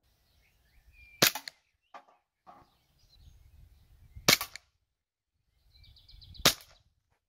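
VFC Glock 19 Gen.3 gas blowback airsoft pistol firing three single shots, each a sharp crack, a couple of seconds apart. Two fainter clicks fall between the first and second shots.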